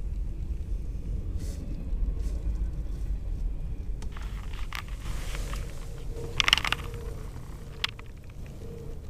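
Double-stack intermodal freight train rolling past, a steady low rumble that eases off as the last cars go by. A sharp knock about six and a half seconds in, and a smaller click near eight seconds.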